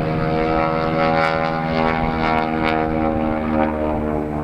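Aircraft engine droning steadily, its pitch drifting slightly up and down.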